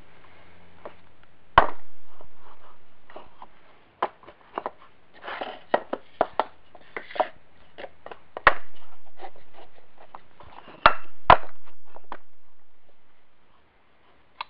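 Steel gears and cast-iron parts of a Wheel Horse 3-piece transmission differential clinking and knocking together as they are fitted by hand, mostly light clicks with four sharp knocks.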